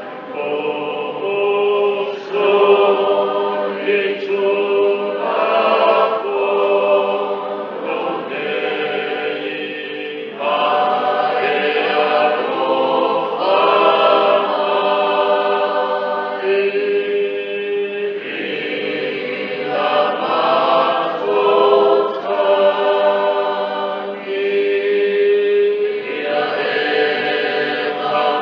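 A choir singing a hymn in Samoan, several voices in harmony holding long notes in phrases of a few seconds.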